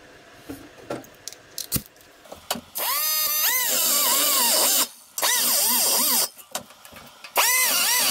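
A few light knocks of sheet metal being handled, then a pneumatic cut-off tool with a small abrasive disc runs in three bursts against the chrome VW fan shroud tin. Its whine sags and recovers in pitch over a hiss of air. It is grinding the shroud to clear it for a proper fit.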